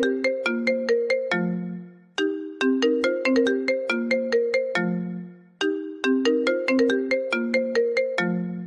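An iPhone ringtone playing: a short marimba-like phrase of quick struck notes that ends on a held low note and fades, repeating about every three and a half seconds.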